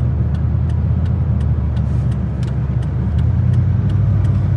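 Truck engine and road noise heard from inside the cab, the engine note rising about three seconds in as the truck picks up speed. A regular ticking, about three clicks a second, runs over it.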